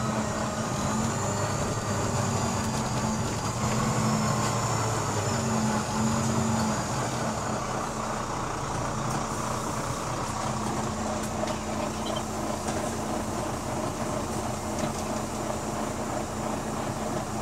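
Diesel engine of a Volvo B9TL double-decker bus running as the bus drives, heard from inside the passenger saloon. The engine note is stronger for the first few seconds, then drops and steadies about seven seconds in.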